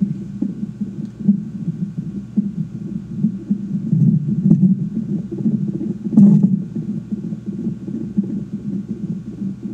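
Unborn baby's heartbeat heard through the mother's belly, played through a phone's microphone input: fast beats over a low rumbling whoosh. A louder brief scrape about six seconds in.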